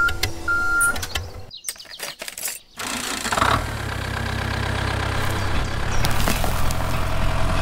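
A few clicks and two short beeps, then from about three seconds in a mini toy tractor's motor starts a steady low running hum as it pulls a small cultivator.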